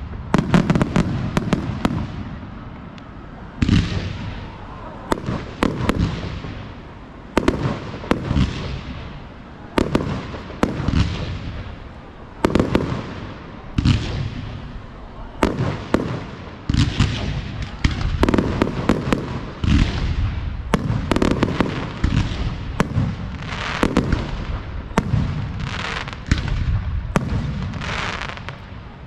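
Fireworks display: firework shells bursting in steady succession, sharp bangs roughly one every second or so, each trailing off in a long echo.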